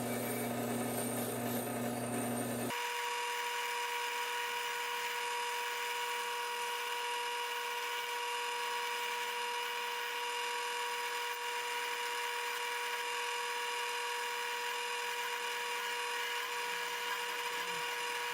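A small power tool's motor running steadily, a constant whine over a hiss. For the first three seconds or so there is a different, lower steady hum, which cuts off suddenly as the whine starts.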